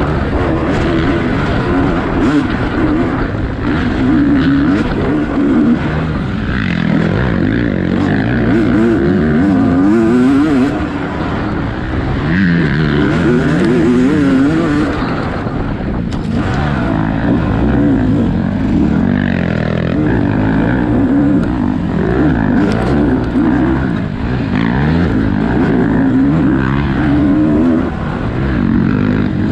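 Off-road dirt bike engine heard from on the bike, revving up and down as the rider works the throttle and gears through trail riding, its pitch rising and falling continuously, with occasional clatter from the trail.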